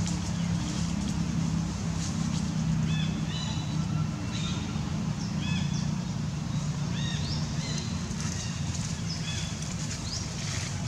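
Outdoor forest ambience: small birds chirping in short, high, repeated notes, some rising, over a steady low hum. A few faint clicks and rustles.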